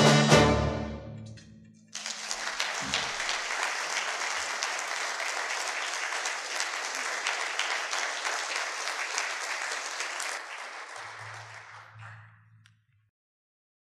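A concert band's final held chord dying away in the hall, then audience applause starting about two seconds in, holding steady and fading out near the end.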